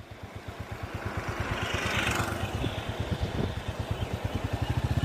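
Royal Enfield Classic 350's single-cylinder engine running at low revs with an even exhaust thump, about ten beats a second, growing louder.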